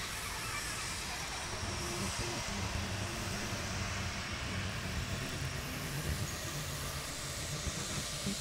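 Live experimental electronic sound music played from a graphic score: a steady rumbling noise bed with low, wavering hums that come in about two seconds in.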